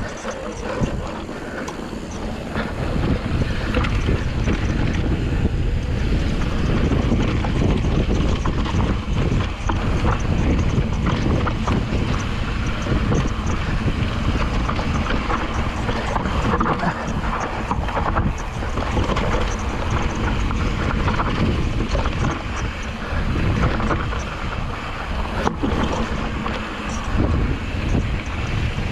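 Wind buffeting the microphone over the rumble and rattle of a mountain bike rolling down a rough rocky trail, with a few sharp knocks from the bike.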